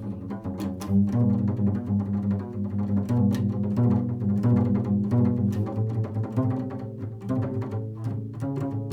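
Improvised instrumental music: low held notes with many short, sharp note attacks, a meditative tone poem.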